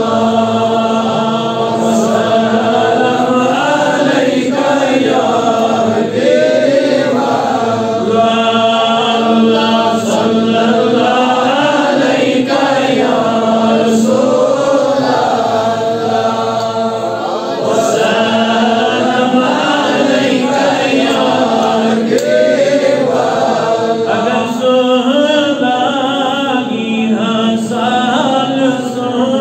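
A man chanting a devotional recitation in a long, melodic, drawn-out voice through a microphone, over a steady low drone.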